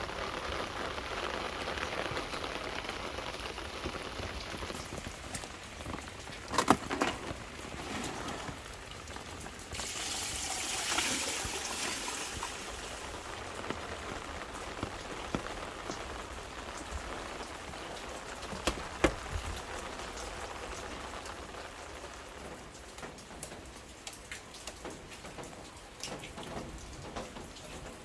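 Rain falling steadily on surfaces during a storm, heavier for a couple of seconds near the middle, with a few sharp knocks about a quarter of the way in and again about two-thirds in.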